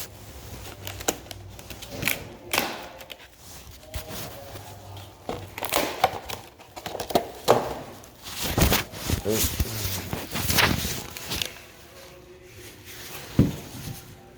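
Crinkling and rustling with irregular clicks and knocks as a cordless detail sander and its battery are handled, and the battery is fitted. A sharp knock near the end is the loudest sound.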